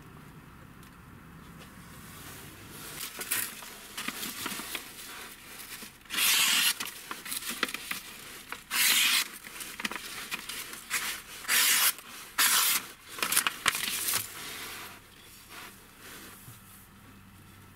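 Steel knife blade slicing through a sheet of paper in a series of short rasping cuts, about five loud ones in the middle with fainter paper rustling between: the finished knife's edge being tested on paper.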